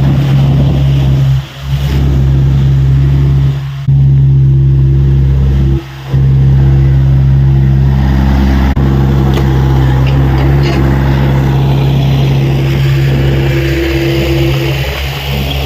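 Diesel engine of a Tata Hitachi EX70 excavator running steadily under working load, with a few brief dips in level.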